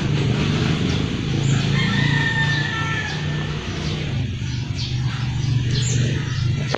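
A rooster crowing once, about a second and a half in, over a steady low rumble.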